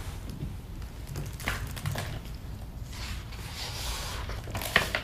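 Hands opening a hardcover picture book and turning its pages on a tabletop: several paper swishes and rustles over low handling rumble.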